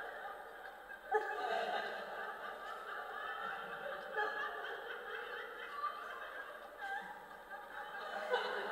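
Audience laughing and chuckling, with a sudden louder burst of laughter about a second in.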